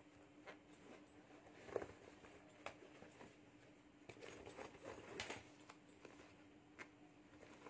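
Faint rustling and crinkling of a fabric handbag with a clear plastic cover as it is handled and turned in the hands, with a few soft clicks, over a steady low hum.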